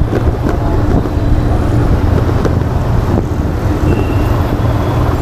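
Motorcycle riding at a steady pace in traffic, heard through an action camera's built-in microphone: engine running under a heavy, steady low wind rumble.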